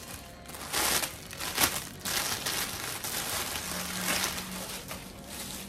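Thin clear plastic packaging crinkling and rustling as it is handled and pulled open around a bundle of artificial eucalyptus branches, in a run of irregular crackles, the sharpest about a second and a half in.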